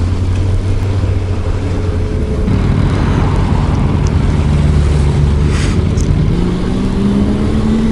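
Motorcycle engine running on the move, with wind rushing over the microphone. About two and a half seconds in the engine note changes, and over the last second or so it climbs steadily as the bike accelerates.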